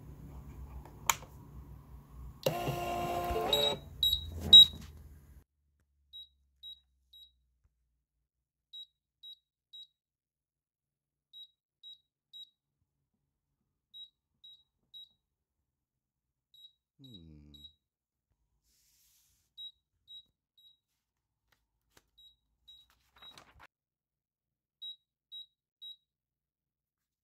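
Phomemo PM-246 thermal label printer's status buzzer beeping in groups of three short high beeps, a group about every two and a half seconds. Three beeps at a time is the printer's paper-shortage signal: no labels are loaded yet. About two and a half seconds in there is a loud burst of rattling noise, and the first three beeps are the loudest.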